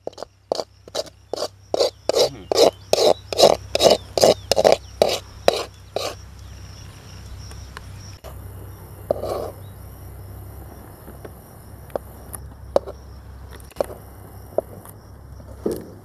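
A metal spoon scraping the inside of a metal cooking pan in quick strokes, about three a second, working thick palkova loose. The strokes stop about six seconds in, leaving only a few light scrapes over a steady insect buzz.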